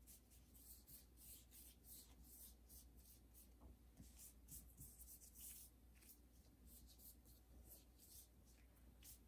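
Silicone pastry brush stroking melted butter over sheets of phyllo dough: faint, quick swishing strokes, about two or three a second.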